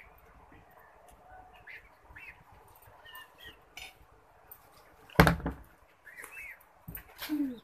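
Faint birds chirping, with a loud clatter of a plate being set down on the table about five seconds in and a smaller knock near the end.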